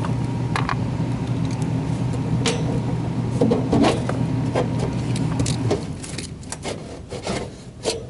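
A steady low electrical hum that cuts off a little under six seconds in, with scattered clicks and knocks of hands and tools working on the air-conditioning unit's metal housing.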